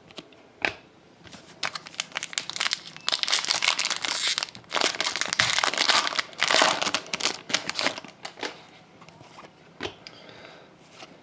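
A trading card pack's foil wrapper being torn open and crinkled: a few light clicks, then several seconds of dense crackling that fades to scattered handling clicks near the end.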